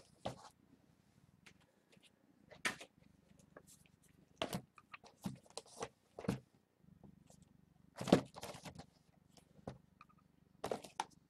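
Irregular knocks, taps and rustles of things being handled and set down on a table, a dozen or so scattered short sounds with the loudest about eight seconds in.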